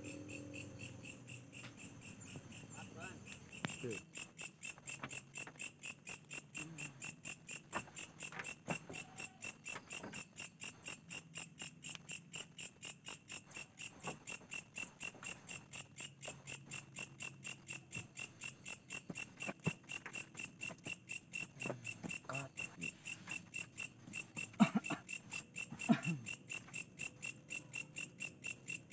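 Crickets chirping in a steady pulsing chorus at night, about three pulses a second. Two sharp knocks sound near the end.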